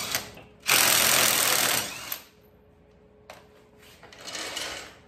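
Cordless impact wrench hammering lug nuts loose on a pickup's front wheel, in bursts; the loudest lasts over a second, starting just under a second in.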